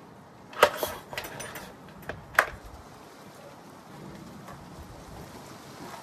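Recoil starter cord of a Yamaha 9.9 hp four-stroke outboard pulled sharply twice, about two seconds apart, turning the engine over without it catching. The engine is starved of fuel.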